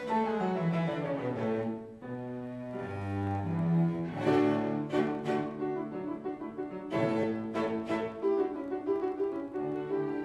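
Live classical instrumental music: a flowing passage of notes with a brief break about two seconds in, then several sharply struck chords.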